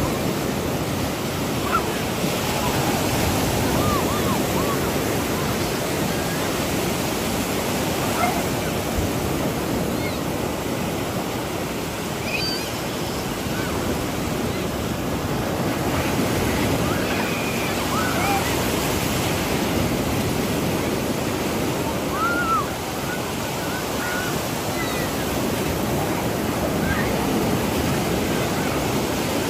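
Sea surf: waves breaking and washing onto the beach in a steady, continuous rush.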